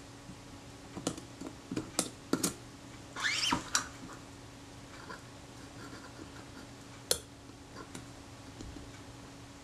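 Scalpel blade scraping dried adhesive off the metal body casting of a Kodak Retina IIIS camera: a run of short scrapes and clicks over the first four seconds, with one longer scratch just past three seconds in, then a single click about seven seconds in.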